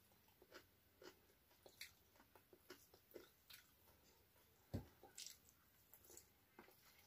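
Faint close-up chewing, a person eating with her fingers, in scattered small wet clicks and crunches, with one soft thump about two-thirds of the way through.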